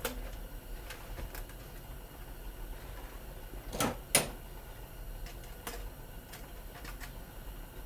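Small clicks and knocks of an air fryer's parts being handled and worked loose during a teardown, with two sharper clicks close together about four seconds in.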